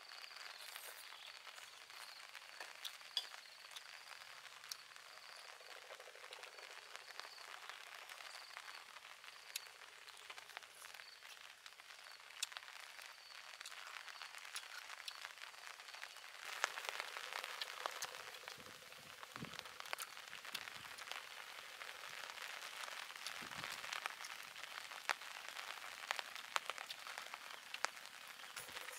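Close-up eating sounds: chewing roasted chicken drumsticks, with spoon clinks and scrapes on a metal plate heard as many faint sharp clicks.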